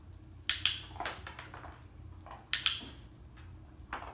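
Dog-training clicker clicked three times, about every one and a half to two seconds, each a sharp double click, with fainter taps between. Each click marks the puppy's paws being in the box, for a treat.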